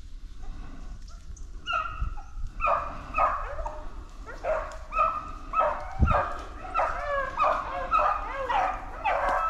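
A pack of beagles baying in chorus, hounds on a rabbit's trail. The cries are faint at first, then from about two seconds in they come thick and overlapping, roughly two a second.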